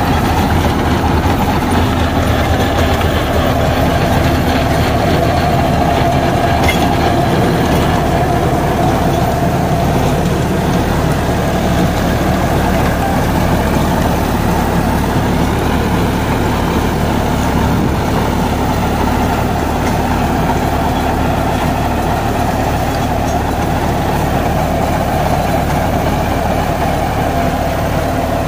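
80 hp Deutz-Fahr Agrolux 80 tractor running steadily under load while its PTO drives a rotary tiller through the soil.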